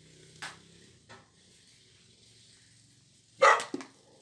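A short, loud animal call about three and a half seconds in, with a brief sharper sound near the start, over a low steady hum.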